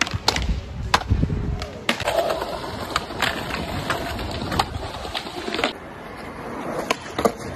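Skateboard tricks on concrete ledges: several sharp board pops and landing clacks in the first two seconds, then a rough grind of the trucks along a ledge lasting a few seconds and cutting off suddenly, then wheels rolling on concrete with two more sharp clacks near the end.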